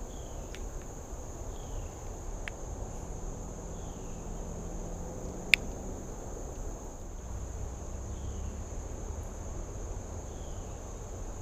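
A steady high-pitched insect drone over a low outdoor rumble, with faint short falling chirps repeating every second or two and a few sharp clicks, the loudest about five and a half seconds in.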